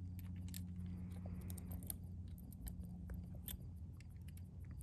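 Brass .38 Special cartridges clicking and clinking as they are taken from the box and pushed by hand into the cylinder of a Colt King Cobra revolver: a scatter of light metallic clicks over a steady low hum.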